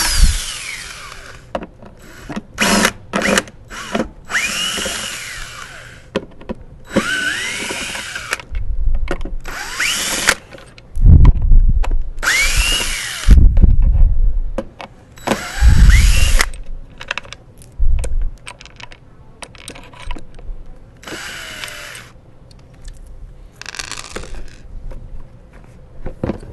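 Cordless drill with a Phillips bit backing screws out of the top of a wet/dry vacuum's motor head in about eight short bursts, its whine rising and falling in pitch with each trigger pull. A few heavy low thumps come in the middle.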